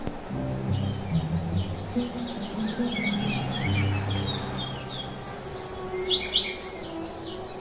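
Small birds chirping and twittering over a steady high insect drone, with soft low held notes underneath.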